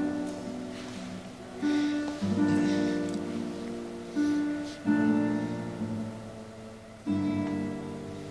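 Solo classical guitar played slowly: a handful of plucked chords, each left to ring and die away, the last one about seven seconds in.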